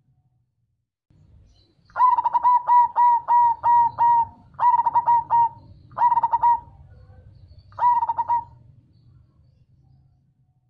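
Perkutut (zebra dove) cooing its rapid, clipped song of repeated notes: a run of about seven notes, then three shorter phrases, with short pauses between them. The song is the deep 'bass' cooing prized in the black cemani variety.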